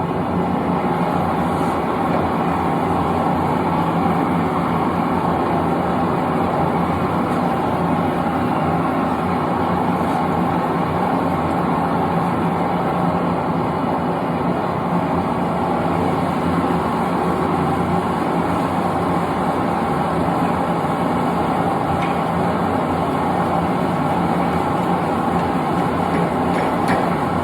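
Propane forge burner running with a steady, unbroken rushing noise.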